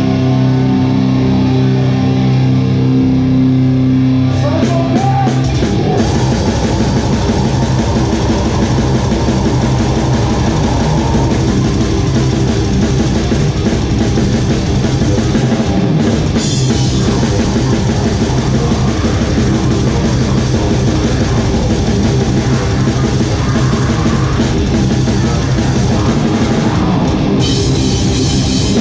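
Live band playing heavy rock: a drum kit under guitars and bass. For the first five seconds or so a chord is held, then fast, dense drumming comes in and keeps going.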